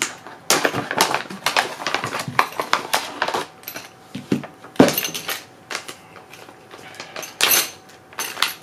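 Plastic packaging bags crinkling and rustling as camera rig parts are unwrapped, with knocks and clinks of the metal parts, one sharp knock about five seconds in.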